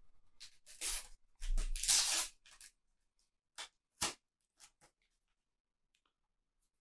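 A Panini sticker packet being torn open with two rustling tears, followed by a few light clicks as the stickers inside are handled.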